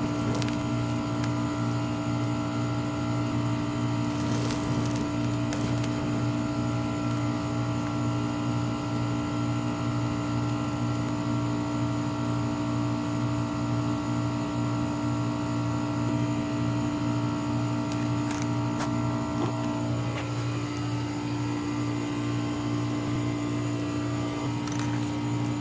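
Steady mechanical hum holding one unchanging pitch, with a few faint clicks about four to six seconds in and a slight change in its upper tones near the end.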